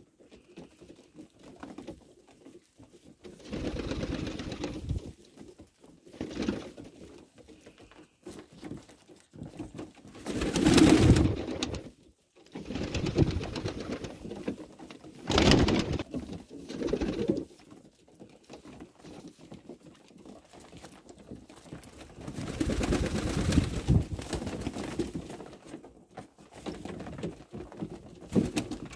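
Domestic pigeons cooing, with several louder bursts of wing flapping as birds flutter down around the feeding hand; the loudest flurries come about ten and fifteen seconds in.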